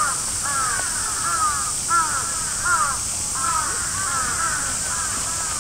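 Several crows cawing over and over, short arching calls following one another in quick succession, over a steady high hiss.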